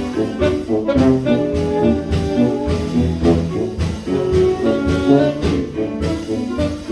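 Live 1920s-style jazz band playing, horns with saxophone carrying the melody over a steady beat.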